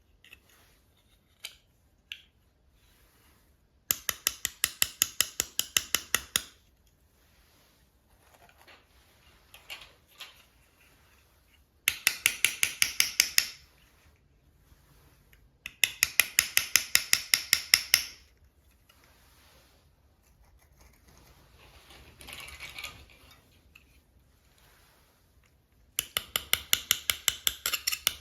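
Four bursts of rapid, evenly spaced clicking, about eight to ten clicks a second for two to three seconds each, like a small ratchet or clicking mechanism, with faint handling noises between.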